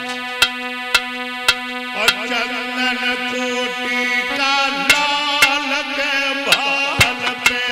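Indian devotional music: a held keyboard chord with sharp drum hits about twice a second, and a male voice singing with bending notes in the latter half.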